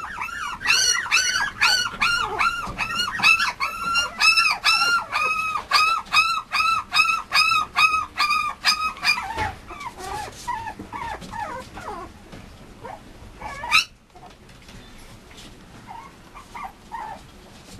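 Mame shiba puppy whimpering in a quick run of high-pitched cries, about three a second. After about nine seconds the cries turn fainter and sparser, with one sharp rising cry a little later.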